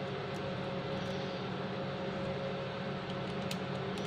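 A steady background hum with a few constant tones in it. Near the end come a few light clicks from a screwdriver and a plastic push-button switch being handled as a wire is fastened to the switch terminal.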